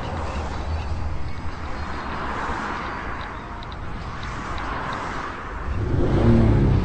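A car running, a steady rumble and road-like hiss; about six seconds in, its low engine note swells louder.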